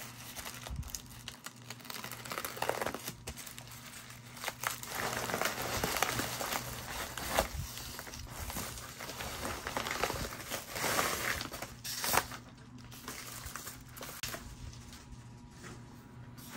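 USPS Priority Mail envelope and padded yellow mailers crinkling and rustling as they are handled and the mailers are pulled out of the envelope, in irregular bursts of louder crackle.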